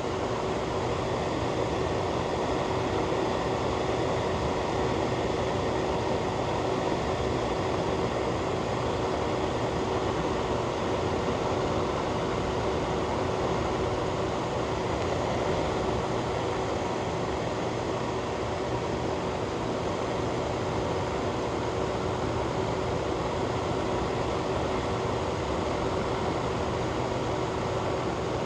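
Fan or ventilation unit running steadily: an even rushing of air with a faint constant hum underneath.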